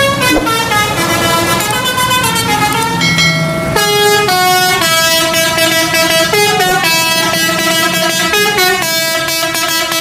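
A horn sounding a quick tune of stepped notes, one pitch jumping to the next every fraction of a second, without a break.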